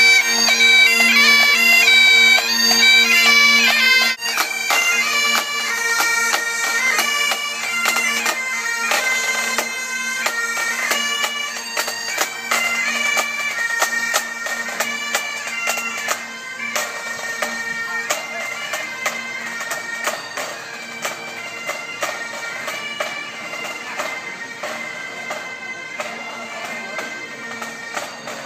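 Great Highland bagpipes of a pipe band playing a tune over their steady drones. Loud for the first four seconds, then the sound drops abruptly and grows gradually fainter as the band marches away.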